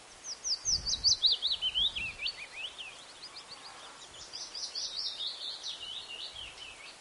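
A songbird singing a long run of quick, sweeping chirps in two phrases. The first phrase steps down in pitch; the second starts about three seconds in.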